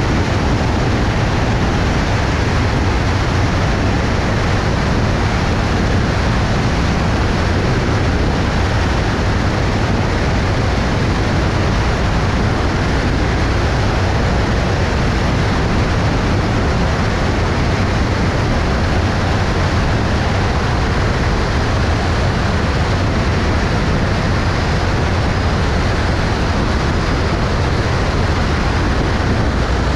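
Cessna 172's engine and propeller running steadily in flight on approach, a constant drone under an even rush of air.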